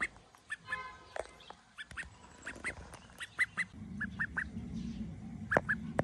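White call duck quacking: one nasal quack about a second in, among many short, soft calls repeated a few times a second. A low steady hum joins about four seconds in.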